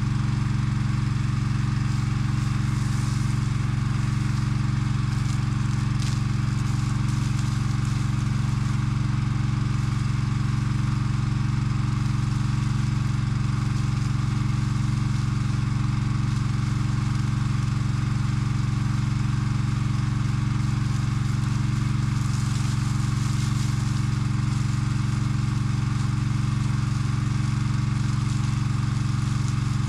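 Engine on a firefighting tracked dump crawler rig running steadily at constant speed while its pump drives water out through a fire hose, with a steady hiss above the engine hum.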